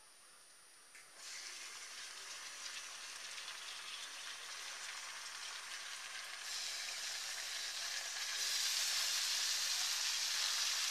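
Raw beef chunks going into hot mustard oil in an aluminium kadai, sizzling. The sizzle starts suddenly about a second in and gets louder in steps as more pieces go in.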